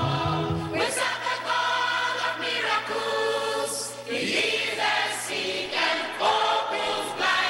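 Mixed choir of men and women singing a gospel song together, with a short break between phrases about four seconds in.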